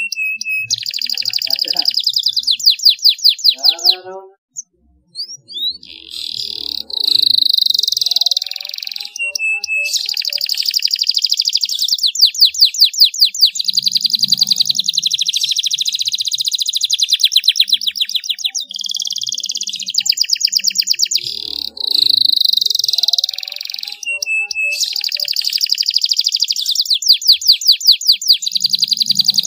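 Domestic canary singing a long, near-continuous song of fast trills and rolls. It breaks off briefly about four seconds in, then carries on.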